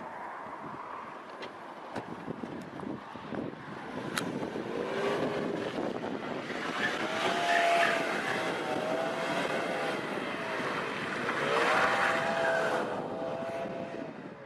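A car on the road, its engine revving and its noise swelling in two louder surges, midway and near the end.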